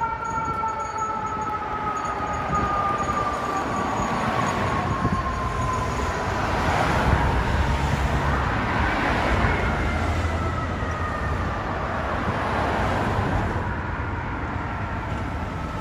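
FDNY fire engine's mechanical siren winding down slowly, spun up again about nine seconds in and winding down again as the engine pulls away, over steady city traffic.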